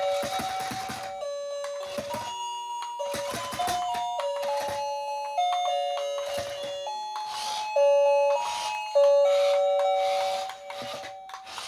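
A simple electronic melody of held, chime-like tones stepping up and down in pitch, with bursts of hiss recurring between the notes.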